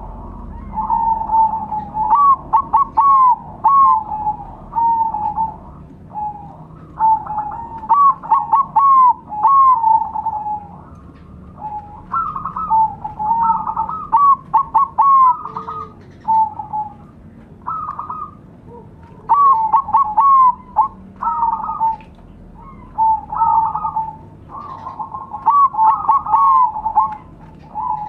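Several caged zebra doves (perkutut) cooing together, their rolling coo phrases of quick short notes repeating in bouts every few seconds and overlapping one another.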